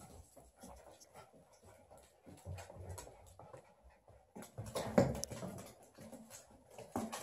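Puppies playing on a hardwood floor: claws clicking and scrabbling on the boards throughout, with one louder sound about five seconds in.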